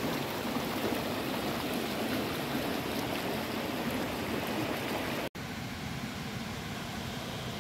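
A forest river flowing and rushing over a rocky cascade, a steady water noise. A little past the middle it cuts out for an instant, then carries on slightly quieter.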